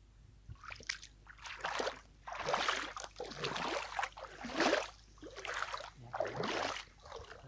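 Shallow river water sloshing and splashing as a man moves his body and arms through it, in a string of swishes about a second apart, starting after a brief hush.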